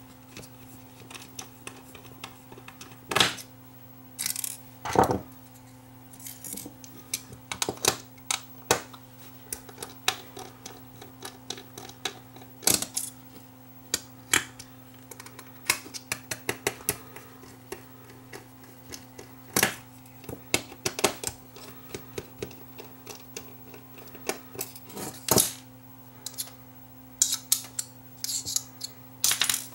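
Irregular small metallic clicks, taps and scrapes of a screwdriver and loose metal parts as a Toshiba 2.5-inch hard drive is taken apart by hand, spread unevenly with a few louder knocks, over a faint steady hum.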